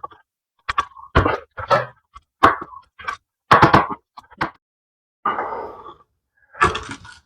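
Irregular sharp metal knocks and clanks, a dozen or so, as a long pry bar works the old rear output seal out of a transfer case, with a short scrape a little past the middle.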